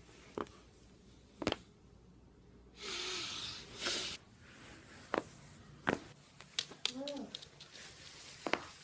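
Neck and upper-back joints cracking during self-adjustment: a series of sharp pops, the loudest about one and a half seconds in, with a run of smaller cracks from about five to eight seconds. A long breathy exhale comes around three seconds in and a short voiced sound near seven seconds.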